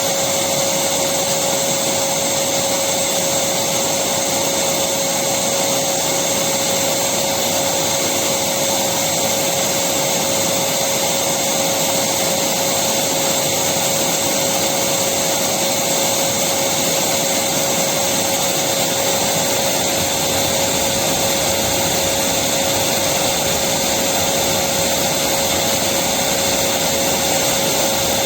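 Electric vacuum cleaner running steadily, a constant whooshing hiss with a steady motor whine, unchanging throughout.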